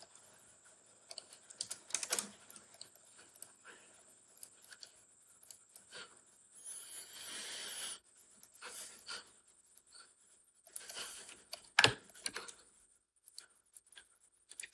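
Computer keyboard typing: scattered soft keystrokes and clicks, one louder click about twelve seconds in. A soft hiss lasts about a second and a half around seven seconds in.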